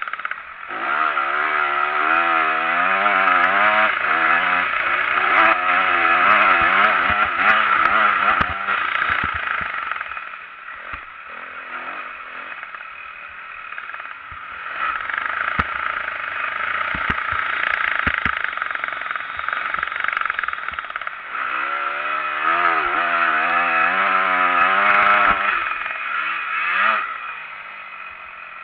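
Motocross bike's engine heard from on board, revving hard up and down through the gears as it is ridden round the track, with scattered knocks. The throttle eases off about ten seconds in and again near the end.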